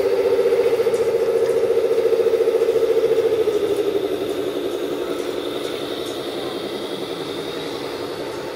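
Radio-controlled model construction machine running: a steady, pulsing, mid-pitched motor hum that drops a little in pitch and level about three and a half seconds in.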